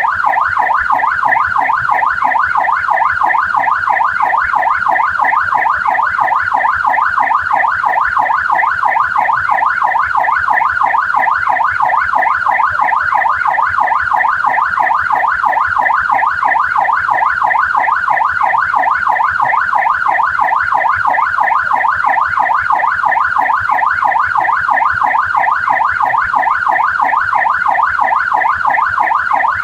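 Australian police car siren in yelp mode: a loud, unbroken wail that sweeps rapidly up and down in pitch, over and over.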